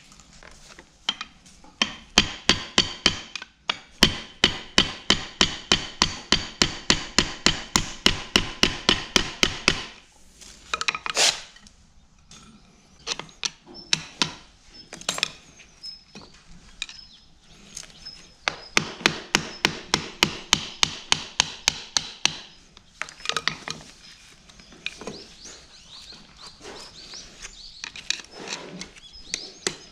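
Hammer tapping a screwdriver driven against the yoke of a tractor PTO shaft's universal joint, about four quick, ringing metal strikes a second. The strikes come in two long runs with a pause between, then lighter scattered taps. The hammering is knocking the universal joint apart to free its broken spider.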